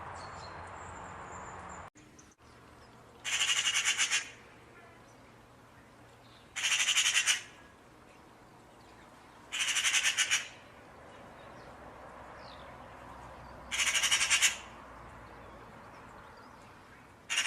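A bird's harsh, rapid rattling call, about a second long and repeated five times, every three to four seconds. Before the calls, a steady hiss cuts off abruptly about two seconds in.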